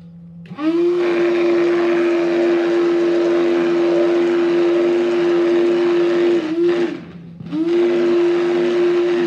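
Electric hand blender running in a steel pot of chilled milk, whipping it into froth. The motor spins up about half a second in and runs at a steady pitch. It stops for about a second near the seven-second mark, then starts again.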